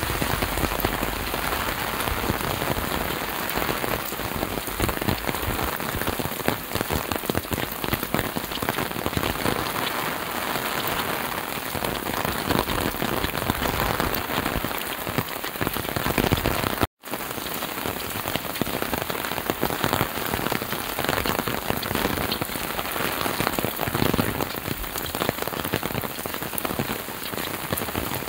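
Heavy rain pouring onto a wet paved road, a steady dense hiss of countless drops splashing. It breaks off for an instant about two-thirds of the way through.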